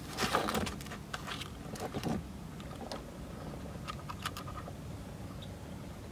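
Handling noise of an LED angel-eye bulb being pulled out of its foam-lined box: a burst of rustling at the start, then scattered light clicks and taps.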